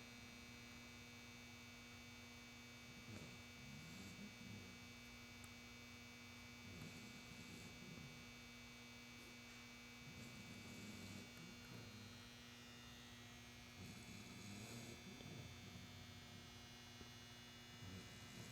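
Weimaraner puppy snoring softly, a faint snore every few seconds, over a steady electrical hum.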